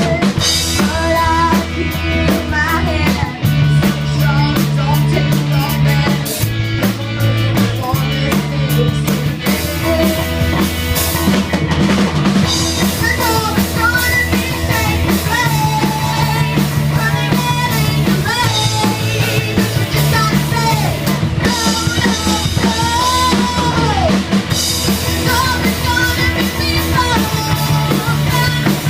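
Rock band playing a song live, with a drum kit, a bass line and a sung lead vocal.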